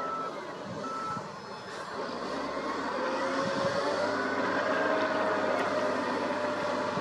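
Heavy machinery with a reversing alarm that beeps twice, then stops; the diesel engine of a wheel loader then revs up under load as the loader pushes its bucket into a dirt pile.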